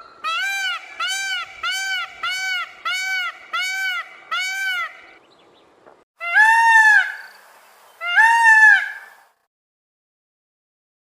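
Peacock calling: a quick run of about eight short, arching honks, then two longer, louder calls.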